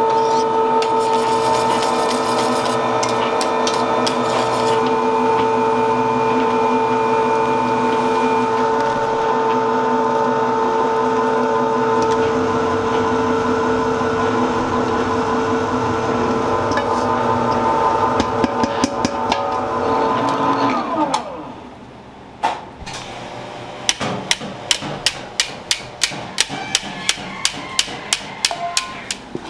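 Commercial stand mixer running steadily, its wire whisk beating cake batter in a steel bowl, a motor hum with a steady whine. About 21 seconds in the motor is switched off and winds down with a falling pitch, followed by a run of sharp knocks, about two or three a second.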